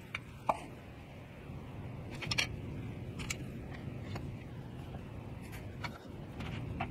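Light clicks and taps as steel combination squares and thin wooden strips are set down and shifted on an MDF board, about eight scattered taps, the loudest a quick double click about two and a half seconds in. A low steady rumble lies underneath.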